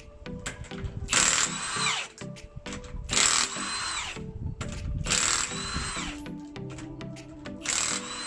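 Background music: held notes under a hissing swell that repeats about every two seconds.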